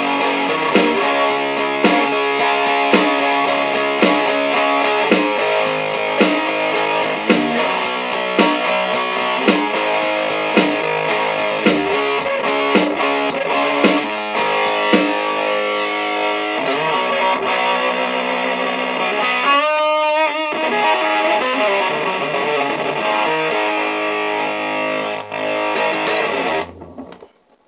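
Electric guitar, tuned down a half step, played through distortion: rhythmic power chords with an attack about once a second. About twenty seconds in, a held note wavers with vibrato, and the playing cuts off shortly before the end.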